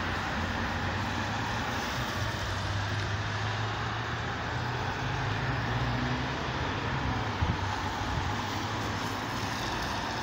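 Road traffic on a wet, snowy road: a steady hiss of tyres and engines, with a vehicle's low engine hum swelling in the middle and a brief knock about three-quarters of the way through.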